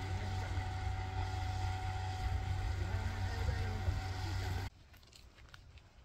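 Steady low engine hum with faint voices over it, cut off suddenly about four and a half seconds in, leaving a much quieter scene with a few light taps.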